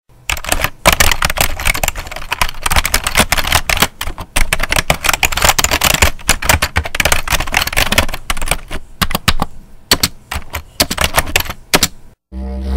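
Typewriter keys clacking in rapid runs of strikes, thinning to sparser separate strikes in the last few seconds. A low steady drone begins just before the end.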